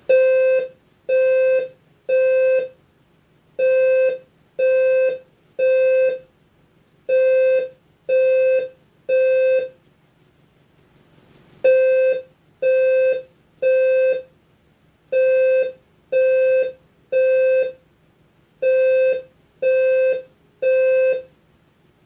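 Fire alarm speaker strobe sounding the Temporal-3 evacuation tone: a single buzzy beep repeated three times, then a pause, over and over. There are six groups of three, with a slightly longer pause about halfway through.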